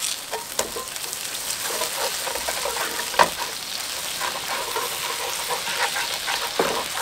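Liquid sizzling and bubbling in a hot nonstick frying pan while a metal spatula stirs and scrapes a lump of paste through it, with a sharp clack of the spatula on the pan about three seconds in.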